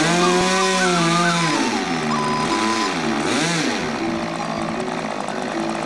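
Small model-airplane engine running and being revved, its pitch dipping and rising a couple of times, over background music.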